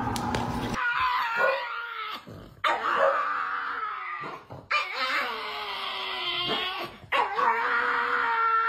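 Pug howling: four long, wavering calls in a row with short breaks between them.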